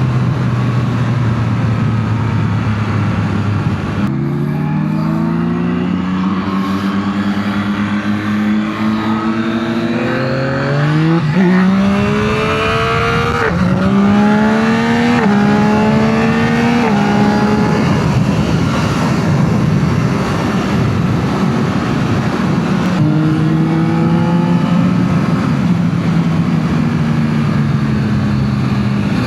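2025 Yamaha MT-09 SP's 890 cc inline-three engine through its stock exhaust, running steadily at first, then accelerating hard through the gears from about four seconds in: the pitch climbs and drops back at each upshift several times. It then eases off and climbs once more near the end.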